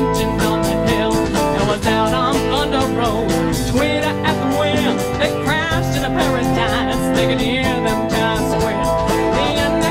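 Live band playing a country-rock song: acoustic and electric guitars, keyboard and drum kit with a steady beat, and a voice singing over it at times.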